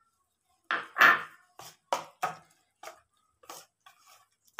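A glass bowl knocked down on the counter about a second in, then a hand mixing thick batter and grated coconut in a plastic bowl: a string of short, uneven squelches and taps.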